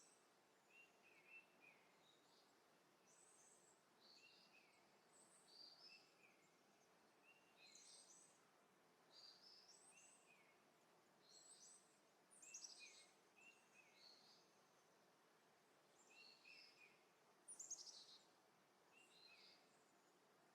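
Near silence with faint birds chirping in the background, short high calls repeating every second or so.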